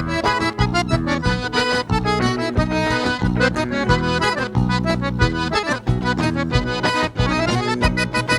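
Live gaúcho dance-band music: an instrumental break led by the accordion (gaita), over bass and a steady beat.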